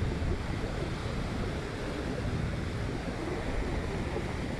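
Steady rush of rough surf and wind, with wind rumbling on the microphone.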